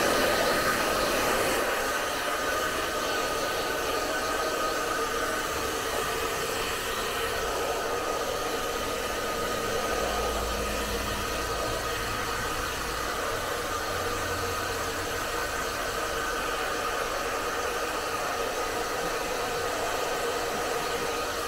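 Handheld electric hair dryer running steadily, a rush of blown air with a steady whine from its motor and fan.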